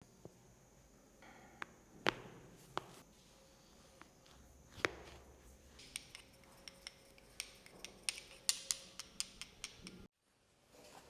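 Sharp clicks and taps: a few spaced strikes, then a quick run of them in the second half, ending abruptly near the end.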